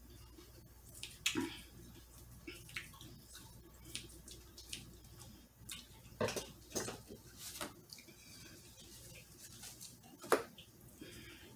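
A person eating grilled steak by hand, close to the microphone: irregular wet chewing and lip smacks, with a sharper smack about ten seconds in.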